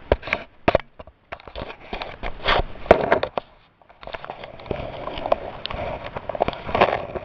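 Handling noise: an irregular string of clicks, knocks and rustles as things are picked up and set down, with a sharp knock about three seconds in.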